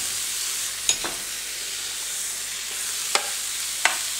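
Sucuk and sliced sausage sizzling on the hot plate of an electric contact grill: a steady frying hiss with a few sharp crackles.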